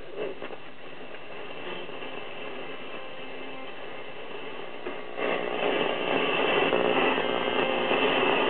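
Static hiss from a Zenith Trans-Oceanic 3000-1 radio's speaker while it is tuned between stations on a shortwave band. The hiss gets louder about five seconds in.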